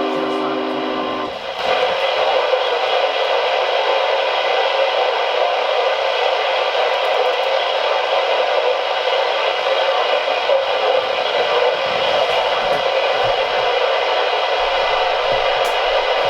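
Steady radio static hiss from a weather-radio receiver's speaker, following a short steady low tone that cuts off about a second in.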